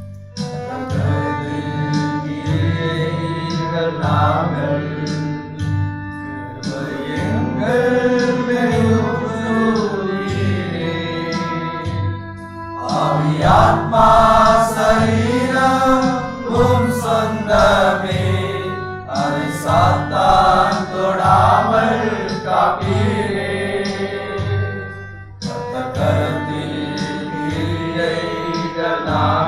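A song: a voice singing a melody over a steady, even beat, with short pauses between sung phrases.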